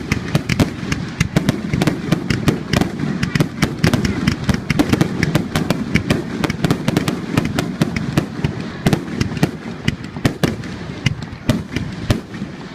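Fireworks going off: a dense, unbroken run of sharp bangs and crackles, several a second, over a steady low rumble.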